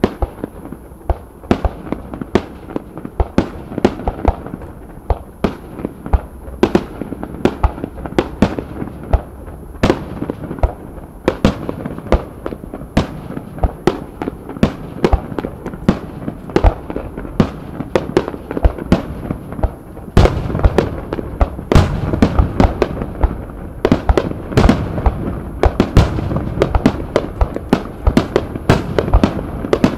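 Fireworks display: aerial shells bursting in a rapid barrage of sharp, overlapping bangs, several a second, with a rumble between them. It grows louder and denser about two-thirds of the way through.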